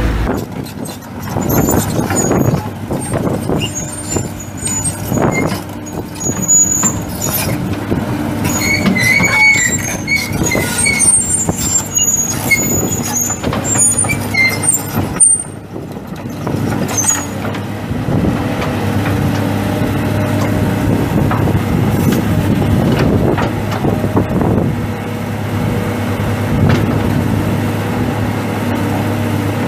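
2002 Kobelco SK210 LC excavator's diesel engine running as the machine works its boom and bucket. Through the first half there are repeated high-pitched metallic squeaks and sharp knocks. After a brief dip about 15 seconds in, the engine settles into a steady hum.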